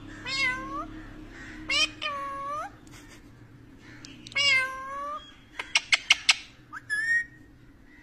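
Rose-ringed parakeet calling: three drawn-out calls that dip in pitch and curve back up. A few sharp clicks follow, and a short rising call comes near the end.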